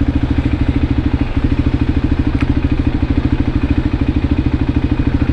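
Voge 300 Rally's single-cylinder engine idling steadily, an even low pulse with no revving.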